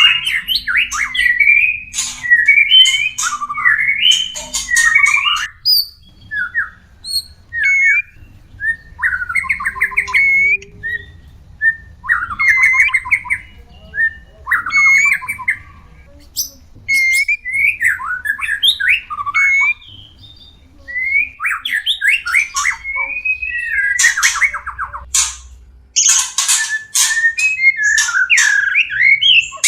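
White-rumped shamas (murai batu) giving mating-season calls and song: phrases of quick whistled notes, fast trills and harsh scratchy notes, coming in bursts with short pauses between them.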